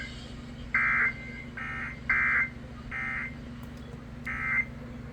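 NOAA Weather Radio SAME end-of-message data bursts: short buzzy, warbling two-tone digital chirps, about six in quick succession with some fainter than others, marking the end of the warning broadcast. A steady low hum from the radio runs underneath.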